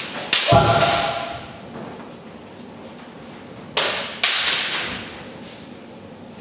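Kendo sparring: a loud shout, a kiai, about half a second in, then two sharp impacts of the bout a little under four seconds in, each echoing off in the large hall.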